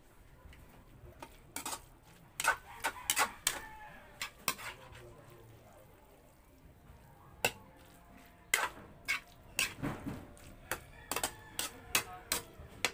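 Metal spatula clanking and scraping against a steel wok as spaghetti is tossed and stirred. The sharp, irregular clinks come in two spells with a quieter pause in between.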